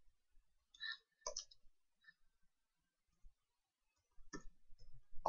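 Faint computer keyboard keystrokes: a few scattered clicks, then a quicker run near the end.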